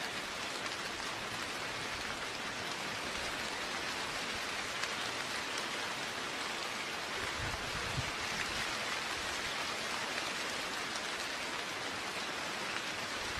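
Steady rain falling, an even hiss with scattered drop ticks; a brief low rumble a little past halfway.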